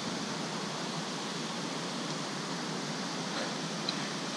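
Steady, even rushing noise with no distinct events, and one faint short tick near the end.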